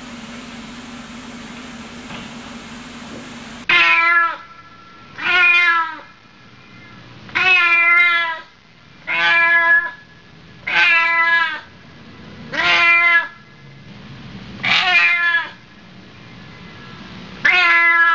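A domestic cat meowing eight times, each meow drawn out and dropping in pitch at its end, about every two seconds. Before the meows begin, a few seconds of steady tape hiss and low hum.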